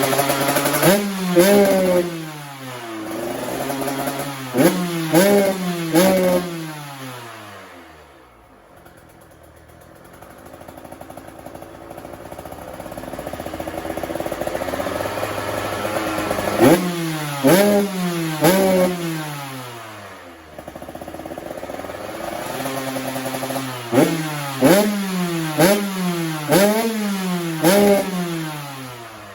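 2023 KTM 125 SX single-cylinder two-stroke engine with an FMF works pipe and 2.1 silencer, free-revved in repeated sharp blips. Each blip jumps quickly to high revs and falls back to idle. The blips come in clusters near the start, in the middle, and near the end, with a quieter stretch of idling between.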